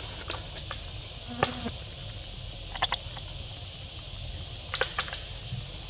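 Steady, high-pitched insect hum in the background, broken by a few short sharp clicks and crackles: one about a second and a half in, a quick cluster near three seconds, and another near five seconds.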